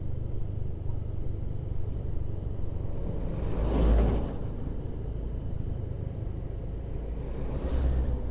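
Steady low rumble of a vehicle driving along a road, swelling louder briefly twice: once about four seconds in and again near the end.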